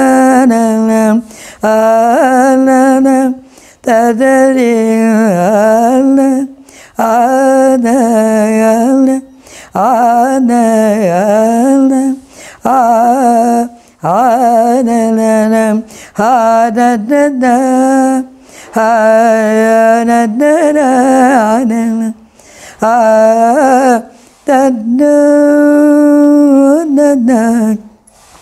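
Elderly woman singing unaccompanied: long held notes with wavering, ornamented pitch, in phrases of about two seconds broken by short breaths.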